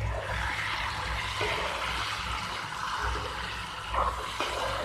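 Potatoes in thick masala sizzling and bubbling in a non-stick kadai as a spatula stirs them, a steady hiss with a couple of light knocks of the spatula about four seconds in.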